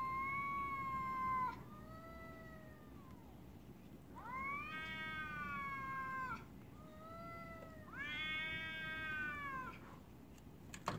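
Cats caterwauling in a face-off: long drawn-out yowls that rise and fall, about every three to four seconds, with shorter, lower yowls between them.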